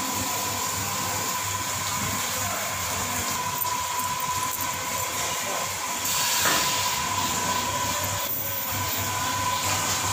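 Steady hissing noise from the stationary train, with a constant high whine running through it; it swells a little about six seconds in.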